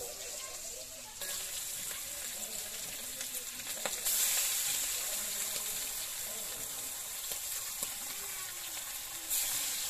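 Turmeric-coated pangas fish pieces sizzling as they fry in hot oil in a karahi. The sizzle steps up about a second in and again about four seconds in as more pieces go into the oil.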